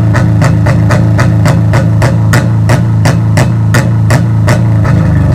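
A 2002 Subaru Forester's 2.5-litre flat-four held against a Bee R rev limiter: the engine drones steadily while the limiter's ignition cut sets off sharp exhaust bangs about three a second.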